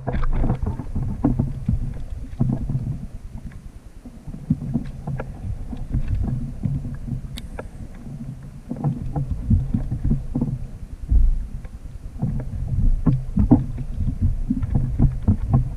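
Wind rumbling on the microphone over open water, with irregular small knocks and taps on a fishing kayak as gear is handled.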